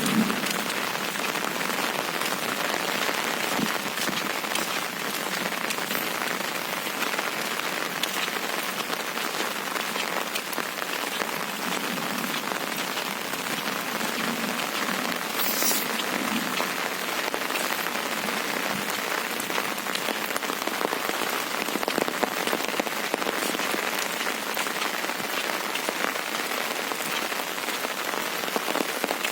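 Windstorm: a steady, dense hiss with many small ticks scattered through it, like rain falling on a surface.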